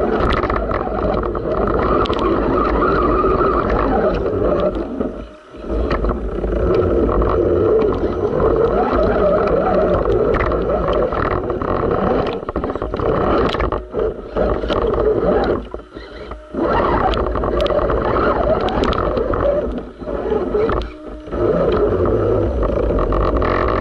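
Electric motor and drivetrain of a radio-controlled rock crawler whining under throttle as it drives through a shallow creek, with water splashing around the truck. The sound drops away briefly three or four times.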